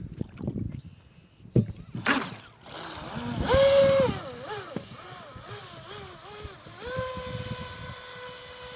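Electric motor of a 3S-powered RC speedboat whining across the water, its pitch rising and falling with the throttle, loudest a few seconds in, then holding a steady high pitch near the end. A few knocks and a brief rush of noise come before it in the first two seconds.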